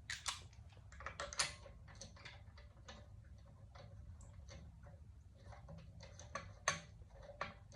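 Irregular light metallic clicks and ticks as a steel wheel lug bolt is threaded into the hub by hand, with a few sharper clicks among them.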